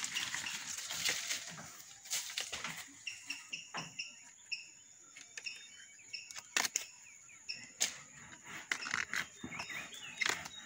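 Kithul palm fronds and flower-stalk sheaths rustling and crackling as they are handled and pulled by hand, with several sharp snaps. Birds chirp in the background.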